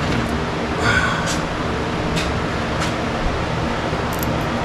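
Steady mechanical hum with a constant low tone, like a running fan or air-conditioning unit, with a few light clicks as small chainsaw parts are handled.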